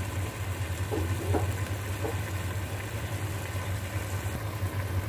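A steady low hum with a faint even hiss over it.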